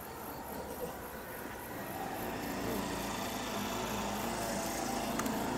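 A motor engine running, growing louder from about two seconds in and then holding steady, over a faint, rapidly pulsing chirr of insects.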